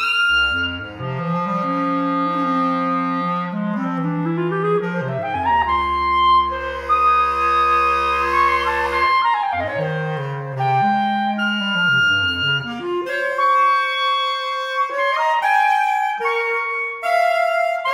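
Soprano clarinet and bass clarinet playing a contemporary duet, both parts sweeping up and down in glides. About two-thirds of the way through, the low bass line drops away and the music breaks into quick short notes.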